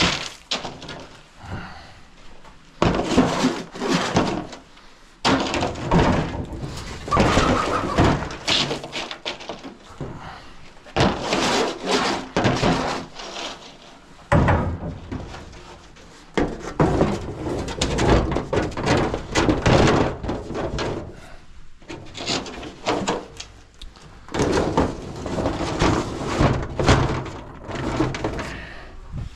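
A welded metal coop scraper scraping dried chicken droppings off roost shields: repeated rough scraping strokes in runs of a second or two, with knocks and short pauses between.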